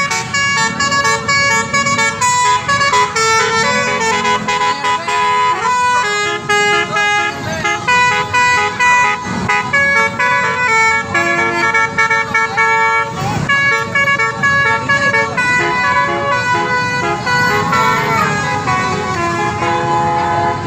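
Telolet horns: a bus's multi-note musical horns playing a rapid string of melodic tunes, note after note and sometimes overlapping, over the low rumble of vehicle engines. There is a brief rush of noise about 13 seconds in.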